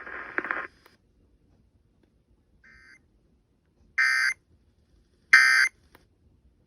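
Emergency Alert System end-of-message tones: three short digital data bursts (the SAME "NNNN" code), about a second and a half apart, marking the end of the alert. The first is faint and the next two are loud.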